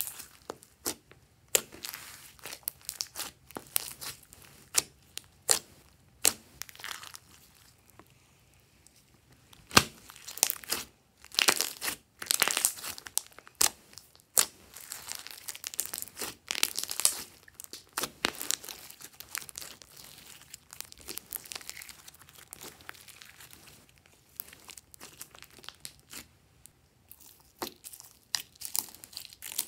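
Hands squeezing, pressing and stretching glossy glitter slime: irregular sharp crackles and pops as the slime is squished, thickening into dense runs of crackling about ten seconds in and easing off again after about eighteen seconds.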